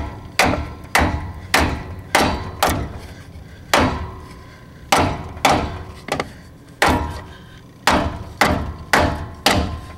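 Claw hammer striking a wooden block held against a Bearing Buddy, driving it into a boat trailer's wheel hub: about fourteen sharp blows at an uneven pace, roughly one or two a second with short pauses, each followed by a brief ring.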